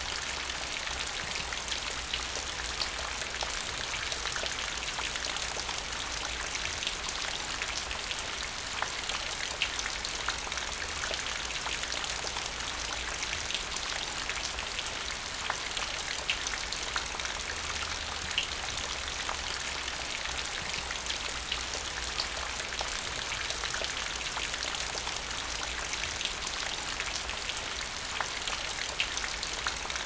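Steady rain falling into a puddle, a continuous patter with individual drops plinking into the water here and there.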